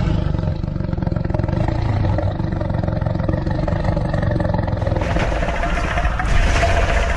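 Kaiju monster sound effect: a long, low rumbling growl that turns brighter and harsher about five seconds in.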